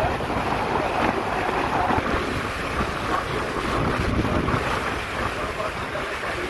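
Wind buffeting the microphone: a steady, loud rush of noise.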